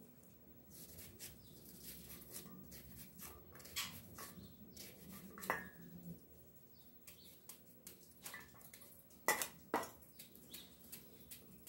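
Kitchen knife cutting an onion held in the hand over a stainless steel bowl: faint scattered clicks and taps of the blade and falling pieces, with a sharper knock about five seconds in and two more close together about nine seconds in.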